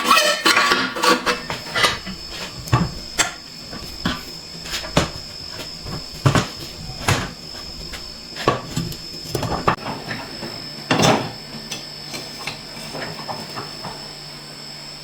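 Irregular knocks and taps of hand tools on metal workpieces, over a faint, steady high-pitched whine.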